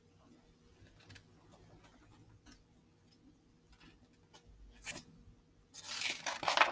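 Picture book being handled: light paper taps and small clicks, then a louder rustle of a page being turned near the end.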